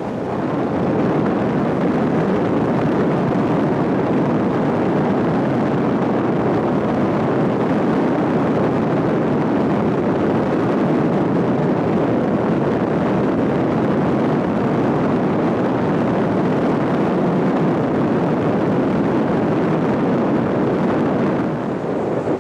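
Steady road and wind noise of a car driving at about 60 km/h, an even rushing sound that holds level throughout.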